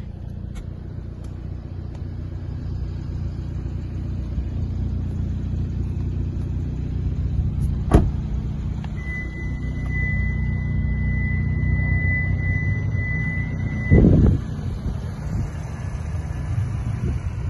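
Hyundai i30 N's 2.0-litre turbocharged four-cylinder engine idling with a steady low rumble. About eight seconds in there is a sharp click, then a steady high electronic beep sounds for about five seconds and stops with a thump.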